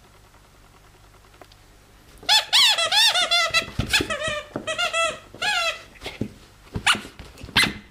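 Red rubber bone-shaped squeaky dog toy squeaking in a rapid run of short, rising-and-falling squeaks as a small dog bites and shakes it. The squeaks begin about two seconds in, with a short break near the end.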